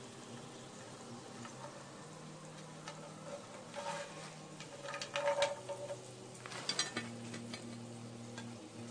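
Faint sizzling with scattered crackles and ticks from a sealed pot of mutton biryani heating on full flame for dum, as it works up to steaming. A faint steady low hum runs underneath.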